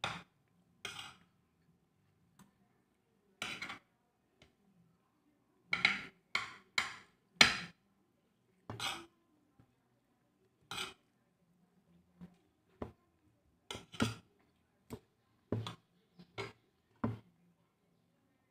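Eating by hand from a plate: scattered short clicks and smacks of fingers, food and mouth, with a quick run of four about six to seven and a half seconds in.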